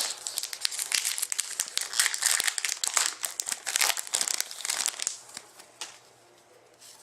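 Plastic wrapper of a hockey card pack being handled and crumpled with dense crinkling, dying down to a few light rustles after about five seconds.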